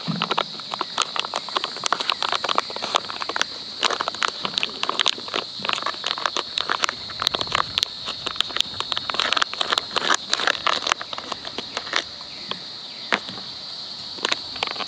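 Foil-lined freeze-dried meal pouch crinkling and crackling with dense irregular clicks as it is handled and torn open, over a steady high drone of insects.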